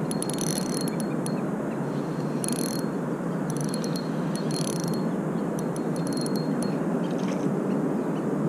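Stinger Innova 1003 spinning reel being cranked in spurts while a hooked fish is reeled in, its gears giving a fast, high ticking that starts and stops every second or so.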